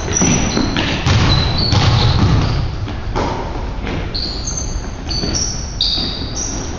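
Pickup basketball play on a hardwood gym floor. A ball bounces and thuds several times, and sneakers give short high squeaks, most of them in the second half.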